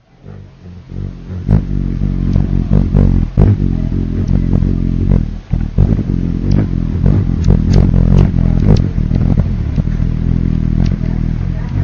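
Hummingbird wings humming close up: a low buzzing drone that fades in over the first second or two and then holds steady, with frequent short sharp ticks.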